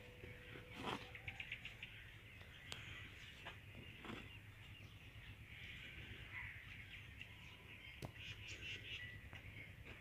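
Faint birds calling and chattering, with a few soft knocks, the loudest about a second in, over a low steady rumble.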